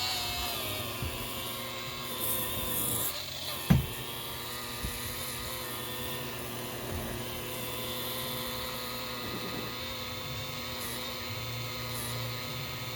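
Electric buffer running steadily, compounding boat gelcoat, with one sharp knock a little under four seconds in.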